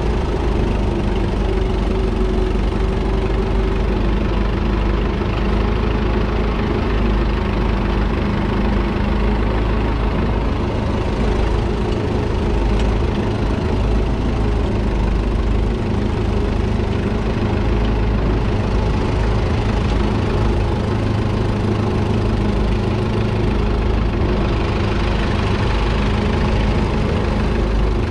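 1942 Fordson Model N's 4.4-litre four-cylinder engine, run on petrol/TVO, running steadily under the load of a two-furrow trailed plough.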